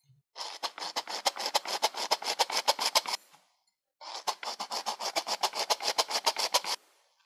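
Flour being sifted through a fine mesh sieve into a glass bowl, the sieve worked in quick regular strokes, about eight a second. There are two runs of about three seconds each, with a short pause between.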